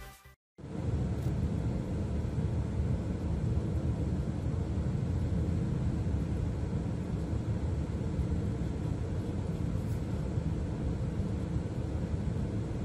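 Steady low rumble of a semi-truck's diesel engine heard from inside the cab as the truck rolls slowly onto a ferry's vehicle deck, starting after a brief gap about half a second in.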